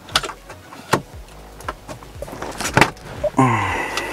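Plastic clicks and knocks as a Mercedes A-Class dashboard air vent is worked loose with a metal hook tool. About three and a half seconds in comes a louder scraping creak with a falling pitch as the vent is dragged out of its housing.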